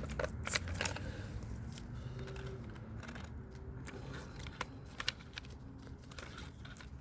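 Scattered light clicks and small plastic snaps as parts of a car door latch assembly are handled and unclipped, a few at the start and one or two more about five seconds in.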